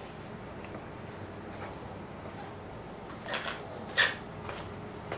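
Paper leaflets and plastic wrapping rustling as they are handled, with short crinkles about three seconds in and a sharper, louder one a moment later.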